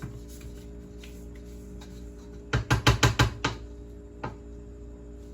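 Stand mixer running on low, beating cake batter with a steady hum. About halfway through comes a quick run of about seven sharp knocks, then one more knock.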